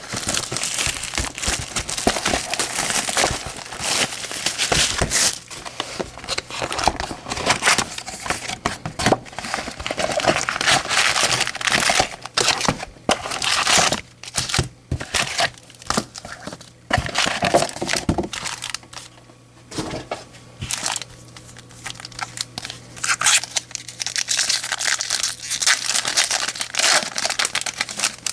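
Wrapping of a 2014 Bowman baseball card hobby box and its packs crinkling and tearing as it is ripped open by hand, with a quieter stretch a little past the middle.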